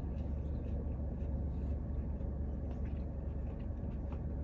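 Steady low rumble inside a parked car's cabin, with a few faint small clicks.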